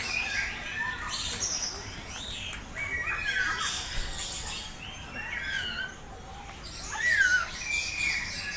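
Many birds chirping and squawking over one another, a busy mix of short whistled and harsh calls; the loudest is a rising-then-falling call about seven seconds in.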